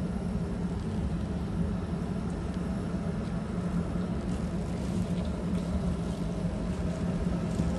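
Steady low drone of yacht diesel engines and machinery in a harbour, an even hum with a noisy rumble under it.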